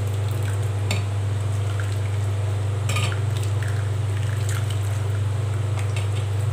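Steel ladle scooping soup from a clay pot and pouring it through a steel tea strainer, giving a few light clinks of metal on metal and pot, the clearest about three seconds in, over a steady low hum.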